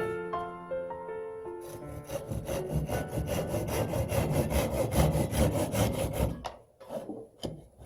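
Hand saw cutting wood with quick, evenly spaced back-and-forth strokes, about five a second, stopping about six and a half seconds in.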